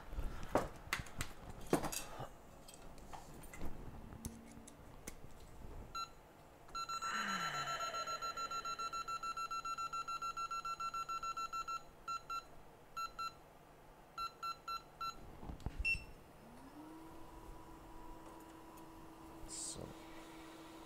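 An electronic beeper sounds a rapid, even string of high beeps for about six seconds, then several short bursts of the same beeps. Before the beeps there are light clicks and taps of tools. Near the end a steady hum comes in, rising in pitch and then holding.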